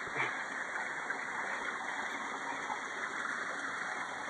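Steady rush of a waterfall's flowing water, with a short bump near the start.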